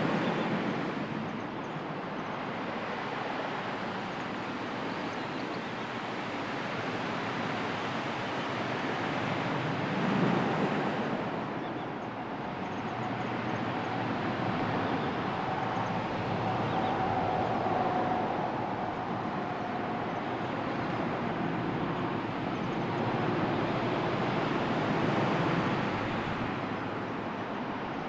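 Sea waves washing onto the shore, the surf swelling and easing every several seconds. A faint steady hum sounds through the middle stretch.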